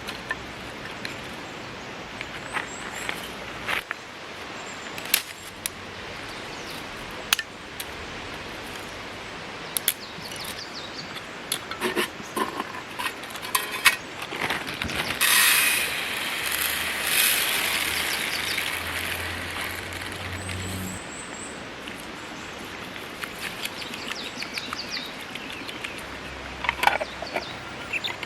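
Scattered clicks and knocks of objects being handled, with a louder stretch of rustling hiss from about fifteen to twenty-one seconds in, over a steady outdoor background.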